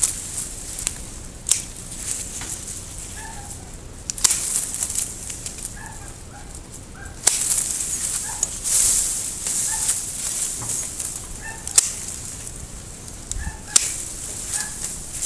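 Pruning shears snipping Japanese maple twigs, several sharp cuts a few seconds apart, with the leafy branches rustling as the cut twigs are pulled away.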